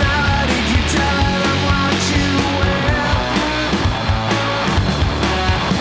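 Loud, driving punk-rock music with distorted electric guitars and a steady drum beat.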